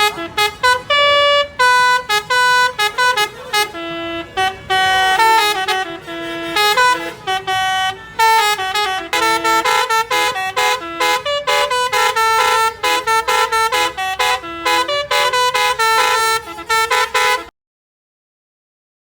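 Bus's Basuri telolet horn playing a fast melody of short, changing notes, which stops abruptly near the end.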